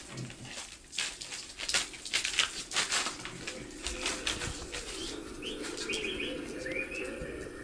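Recorded sound effect of pigeons: a flurry of wing flaps through the first half, then cooing with a few short chirps.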